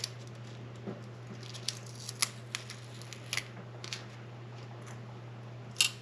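Scattered light, sharp clicks and ticks from small parts and tools being handled on a repair bench, the loudest just before the end, over a steady low hum.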